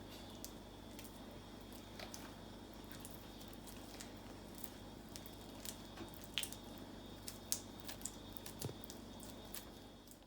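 Faint wet squishes and small sticky clicks of green 'snot' slime being squeezed and pulled apart in the hands, coming more often in the second half, over a low steady hum.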